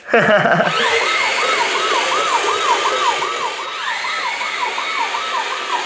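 Toy remote-control fire truck's electronic siren sounding a fast wail, its pitch rising and falling about three to four times a second.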